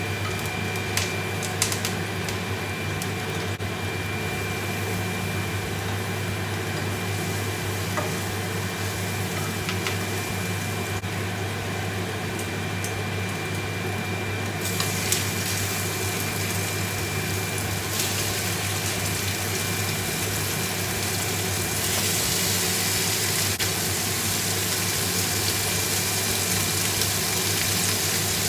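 Oil and herbs sizzling in a frying pan, growing louder partway through as pork steaks are laid in to fry, with a steady low hum underneath.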